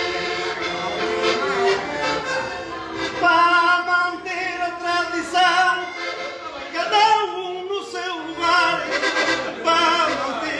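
Portuguese desgarrada: a man's voice singing an improvised verse over button accordion accompaniment. The accordion alone at first, with the singing voice coming in about three seconds in.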